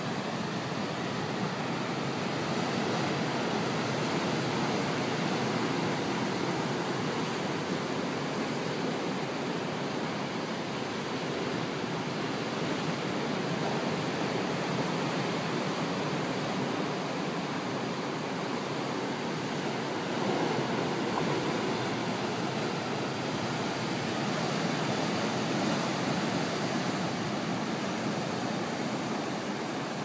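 Heavy storm surf from a typhoon passing offshore breaking along the shore: a steady, unbroken roar of waves.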